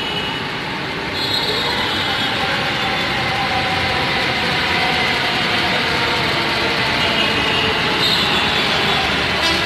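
Hyderabad Metro electric train running along the elevated track. Its steady rolling noise grows louder about a second in.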